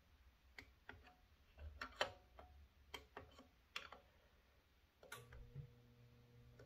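Torque wrench clicking as bolts are tightened to a set torque: scattered sharp clicks at uneven spacing, the loudest about two seconds in. A faint low steady hum comes in about five seconds in.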